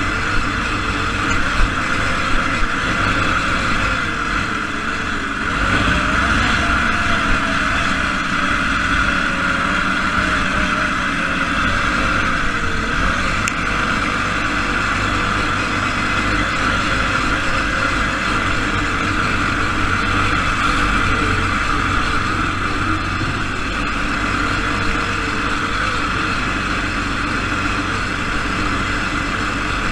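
Single-cylinder Briggs & Stratton engine of an SAE Baja off-road buggy, heard from the driver's seat, running hard over a dirt course, its pitch rising and falling with the throttle. A few sharp knocks come in the first few seconds.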